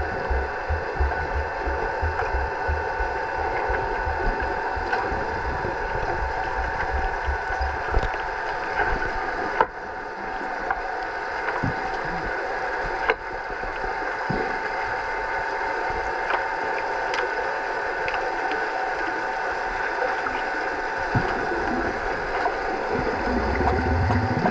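Underwater sound in a swimming pool during an underwater hockey game: a steady hum of several fixed tones with a churning wash of water. Quick low pulses run through the first several seconds, sharp clicks come about ten and thirteen seconds in, and a low rumble rises near the end.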